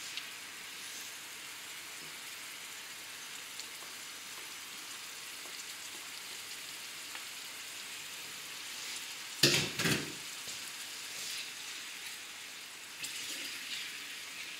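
Oil sizzling gently in a frying pan over a low flame, with onion, garlic, anchovies and newly added capers in it. A couple of sharp knocks come about halfway through, and a wooden spoon stirs the pan near the end.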